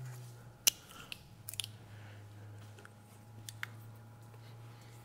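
A few short sharp metal clicks from cable-type hose clamp pliers working the spring clamp on a lower radiator hose, over a steady low hum.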